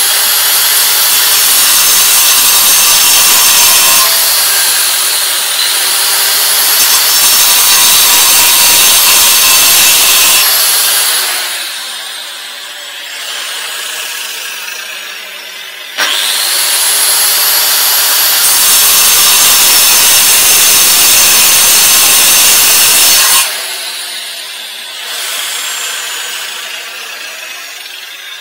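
HiKOKI angle grinder cutting into a concrete paving slab: it runs at full speed grinding through the slab for about eleven seconds, its whine dipping for a moment as it slows under load, then winds down with a falling whine. About halfway through it starts again sharply, cuts for about seven seconds more and winds down again.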